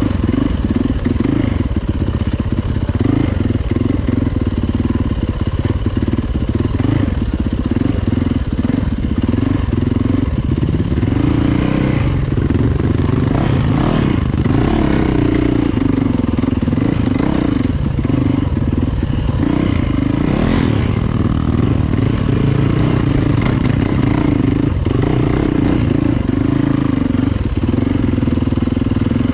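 Yamaha YZ450FX dirt bike's single-cylinder four-stroke engine running steadily as it is ridden along a trail, its pitch rising and falling with the throttle through the middle.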